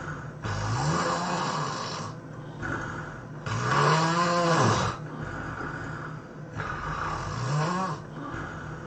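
A person snoring heavily: three loud snores about three seconds apart, each with a pitch that rises and then levels off, the middle one the loudest, with a weaker breath between the first two.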